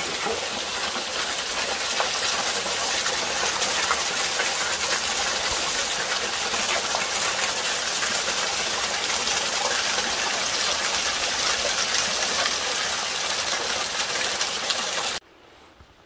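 Small waterfall: a steady rush of water splashing onto rock, cutting off suddenly near the end.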